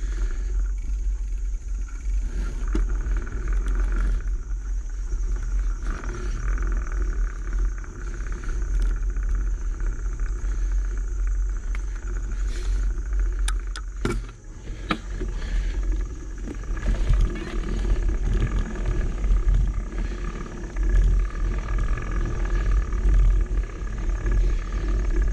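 A bicycle ridden along a rough dirt trail, heard through an action camera's microphone: a steady low wind rumble with scattered rattles and knocks from the bike over the ground, and a few sharp clicks about 14 seconds in.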